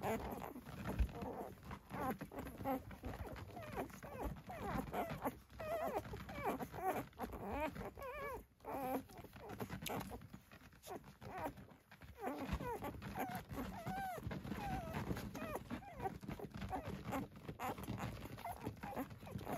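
Six-day-old Dalmatian puppies nursing from their mother, giving many short, wavering squeaks and whimpers one after another.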